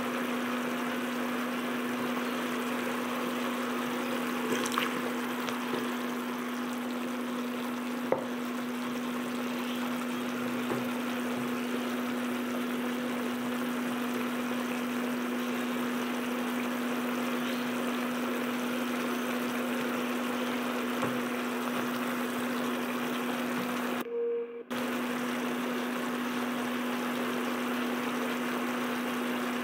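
Chicken adobo simmering in its soy-vinegar sauce in a nonstick pan, a steady sizzle, over a steady low hum. The sound drops out for about half a second near the end.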